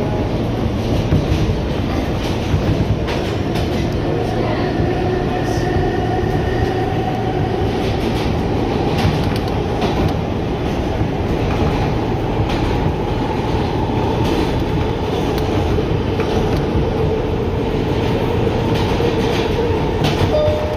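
Kawasaki R160B subway car with Alstom propulsion running along the track, heard from inside the car: a steady loud rumble of wheels on rail with frequent clicks from rail joints. A faint whine drifts slowly in pitch through it.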